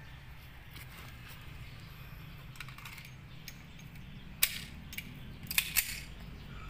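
Metallic clicks and clacks of a .45 pistol being handled, a few scattered light clicks, a sharper one about four and a half seconds in, and a quick run of three near the end.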